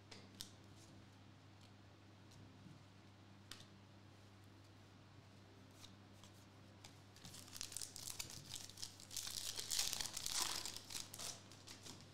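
Foil trading-card pack wrapper being torn open and crinkled, a rustling, tearing stretch of a few seconds in the second half, after a few faint clicks of cards being handled.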